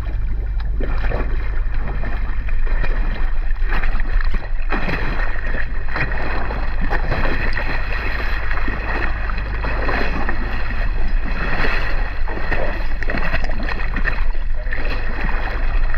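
Small boat on open water: wind buffeting the microphone over a steady low rumble, with irregular splashy noise from the water.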